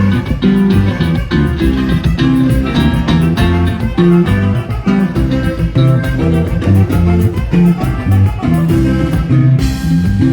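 Mexican regional dance music played by a live band, with plucked guitar and bass over a steady beat.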